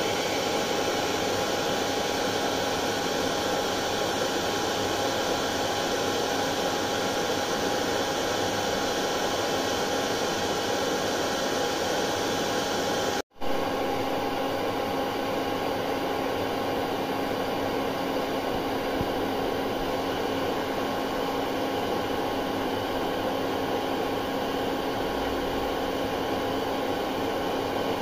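Hair dryer running continuously: a steady blowing whoosh with a constant motor whine. About halfway through it cuts out for a split second and resumes with a slightly different hum.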